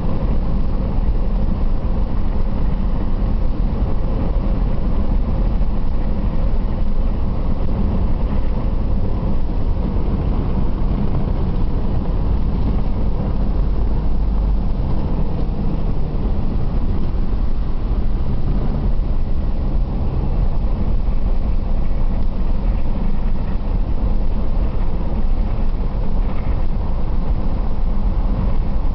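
Rental car being driven, heard from inside the cabin: a steady rumble of engine, tyre and road noise, with the engine note shifting a little now and then.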